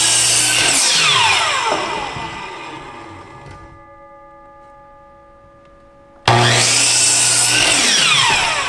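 Hitachi miter saw cutting through a 2x6 pine board: the saw runs at full speed, then winds down with a falling whine from about a second and a half in. About six seconds in it starts again suddenly for a second cut.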